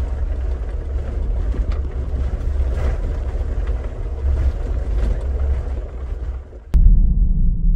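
2021 Ford Bronco Badlands heard from inside the cabin while driving on a gravel trail: steady engine and tyre rumble with road noise and a few knocks from the gravel. Near the end the driving sound cuts off abruptly and a loud, deep boom sets in and keeps rumbling.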